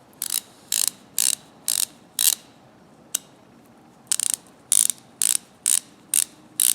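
Freshly rebuilt and greased Thorsen 77J ratchet clicking as it is swung back and forth: short runs of pawl clicks about twice a second, pausing for about a second and a half midway, the mechanism now working freely.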